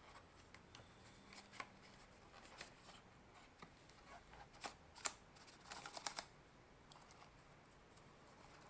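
Faint, scattered clicks and rustles of a small microphone's retail packaging being handled, with a brief denser cluster about six seconds in.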